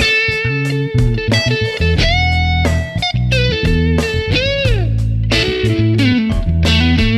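Background music led by an electric guitar playing a melody with notes bent up and down, over a low bass line.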